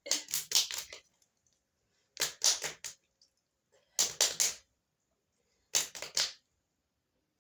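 Crunchy food being bitten and chewed close up, in four short bursts of three to five sharp crunches each, about two seconds apart.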